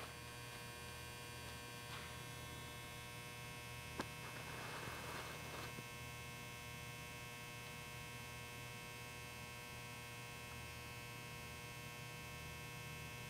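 Steady electrical mains hum. A single sharp click comes about four seconds in, followed by a brief faint rustle.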